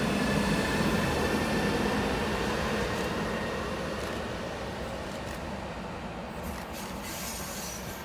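A Siemens Vectron-family electric locomotive running light past and away. Its high electric whine and low hum ride over wheel-on-rail rumble, fading steadily as it recedes.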